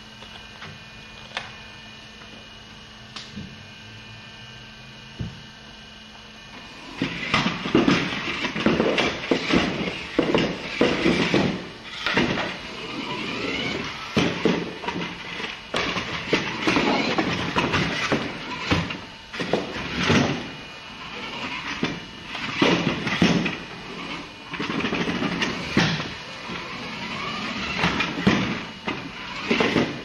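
Toy remote-control car's small electric motor whining and its wheels rumbling, driven in short irregular bursts starting about seven seconds in; before that only a faint steady hum with a few clicks.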